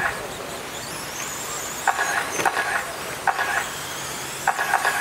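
Radio-controlled dirt oval late model race cars running laps: a steady buzz of motors and tyres on dirt, with a high whine rising in pitch about a second in. Clusters of rapid, chattering pulses come and go as cars pass close by.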